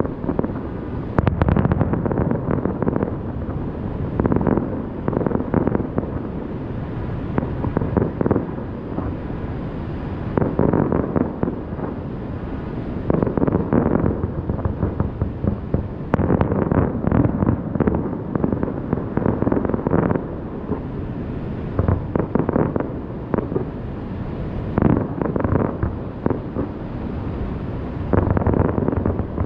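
Fireworks going off in rapid succession, booms and crackles one after another with hardly a gap, with wind noise on the microphone.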